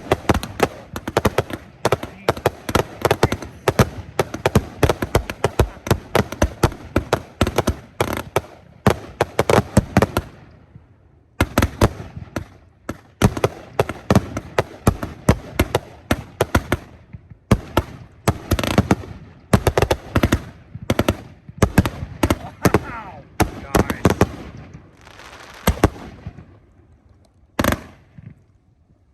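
Aerial fireworks from the willow segment of cakes firing in rapid volleys, a quick crackle of launches and bursts. There is a short break about eleven seconds in, and the shots thin out near the end with one last lone shot.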